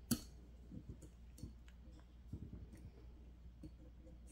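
Faint, light clicks of small metal parts on a Staccato XC pistol slide as the firing pin is pushed down and the firing pin stop plate is worked into its groove, with one sharper click just after the start.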